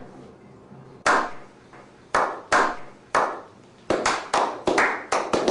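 Sharp hand claps with a short echoing tail. They come slowly at first, about one a second, then speed up to about four a second near the end.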